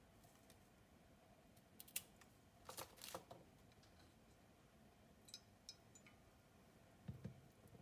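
Faint handling sounds while ladyfingers are dipped in espresso: a sharp click about two seconds in, a short rustle of the plastic ladyfinger wrapper about a second later, a few light ticks, and a low soft thump near the end.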